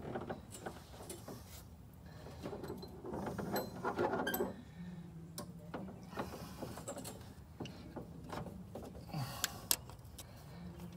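Socket wrench and metal tools clicking and clinking while a rocker arm is refitted on a GM LS V8's cylinder head. The clicks are scattered, with the sharpest few close together near the end.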